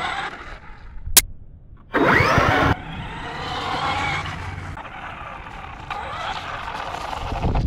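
Traxxas Rustler 4x4 VXL RC car's brushless electric motor and drivetrain whining as it is driven over muddy grass, the pitch rising and falling with the throttle. A sharp click comes about a second in, and a short, loud burst of rising whine follows at about two seconds.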